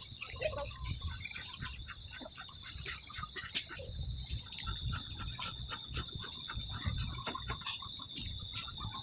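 A steady high-pitched trill from calling animals, with many short sharp clicks and a low rumble underneath.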